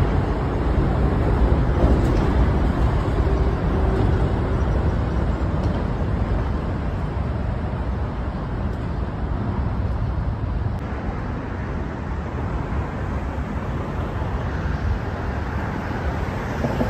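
Steady rush and rumble of traffic on an elevated highway.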